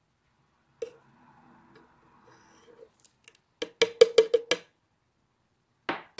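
A utensil knocked against the blender jar to shake sweet cocoa powder into it: one knock, then a fast run of about seven sharp, hollow-sounding taps in about a second, and two more knocks near the end.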